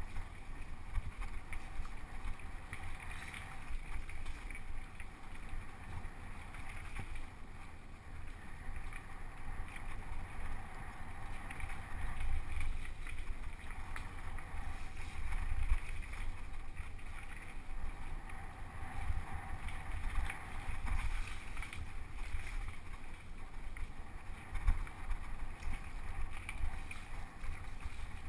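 Mountain bike ridden fast down a dirt trail: uneven low wind rumble on the camera's microphone over tyre noise, with scattered knocks and rattles from the bike over bumps.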